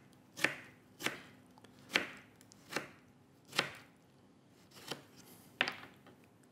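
Kitchen knife chopping salad vegetables on a plastic cutting board: about seven separate strokes, spaced roughly a second apart.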